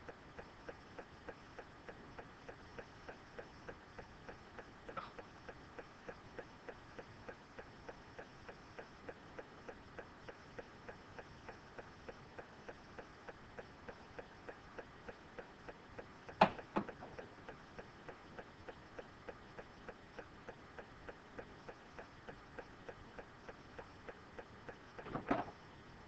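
Steady, faint ticking, about two ticks a second, like a clock, with a louder sharp click about sixteen seconds in and a short cluster of clicks near the end.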